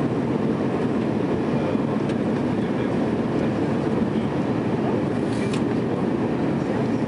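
Steady cabin rumble of an Airbus A300 airliner on final approach, engine and airflow noise heard from inside the cabin over the wing.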